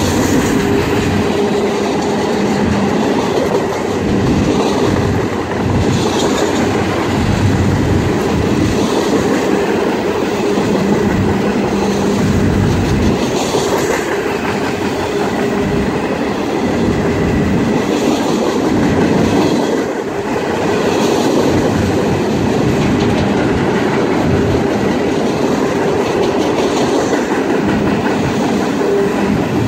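Freight cars of an empty BNSF trash train, loaded with garbage containers, rolling past steadily, their steel wheels clacking over the rail joints again and again.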